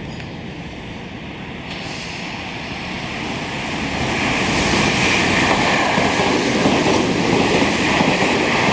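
Electric train running in along the platform: a rising rush of wheel and running noise that swells over the first few seconds and stays loud as the cars go by.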